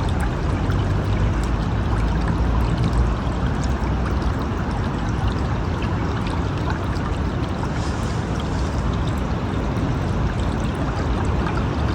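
River water flowing steadily in a constant rush.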